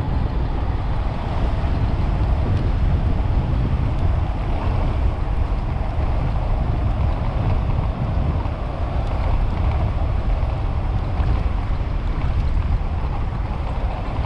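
Wind buffeting the microphone of a camera riding on a moving electric tandem bicycle: a steady, loud rushing noise, heaviest in the low end.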